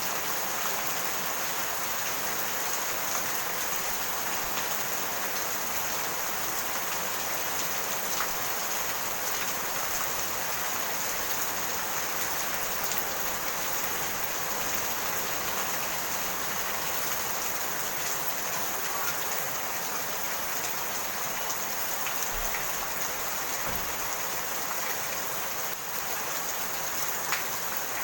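Steady rain falling and pattering on surfaces, with scattered single drops ticking.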